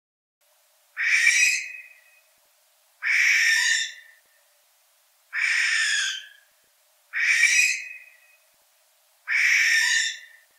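Western barn owl (Tyto alba) giving its harsh, hissing screech, five times in a row about two seconds apart, each call under a second long and tailing off.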